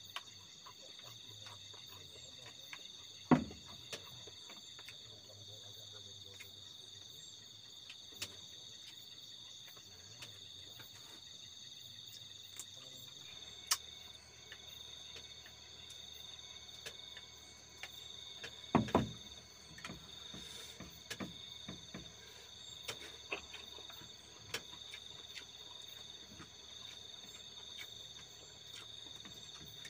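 Crickets trilling steadily at night, with scattered clicks and a couple of sharper knocks, about three seconds in and around nineteen seconds.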